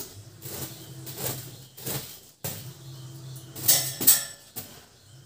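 A soft grass broom sweeping across a bedsheet: several quick swishing strokes, a few in a row near the start and another bunch near the end.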